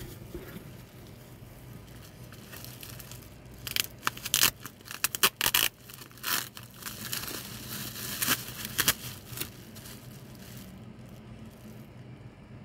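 Plastic bubble-wrap packaging crinkling and tearing as it is pulled off a small tube by hand, with a run of loud rustles about four seconds in, then lighter crinkles until near ten seconds.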